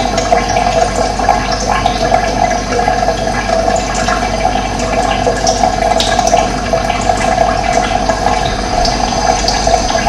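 Steady rush of running water, with short bird chirps here and there.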